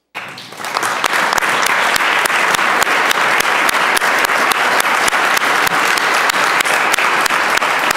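A chamber full of legislators applauding, many hands clapping at once. It starts just after the opening and builds quickly to a steady, dense applause.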